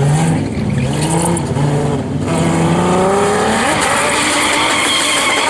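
Car engine revving hard, its pitch climbing and dropping again several times, with one long rising rev partway through.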